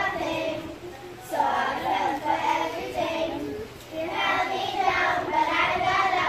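A group of young girls singing together, phrase by phrase, with short pauses between phrases.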